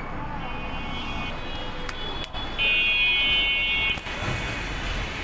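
Street traffic with a vehicle horn: fainter horn tones from about half a second in, then one loud steady horn blast of about a second and a half, ending about four seconds in.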